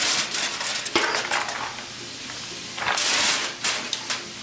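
Fried rice being tipped and scraped out of a stainless steel bowl into a foam takeout container: sharp metal clinks at the start and about a second in, then a rush of falling rice grains about three seconds in.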